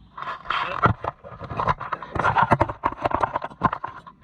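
Plastic tops of solar garden lights being pulled off their bases and handled: irregular clicks, knocks and scraping.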